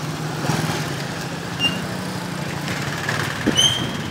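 A steady low engine hum, as of a motor idling, with light clatter and two short high chirps, about a third of the way in and near the end.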